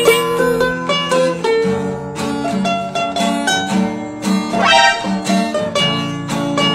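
Background music played on plucked string instruments, with quick picked notes over a steady accompaniment.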